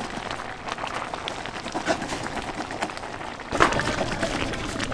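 Wooden ghutni (lentil masher) twirled in a pot of boiled masoor dal and taro leaves, making quick, irregular clicks and knocks against the pot as the lentils are mashed. A louder rush of noise comes in about three and a half seconds in.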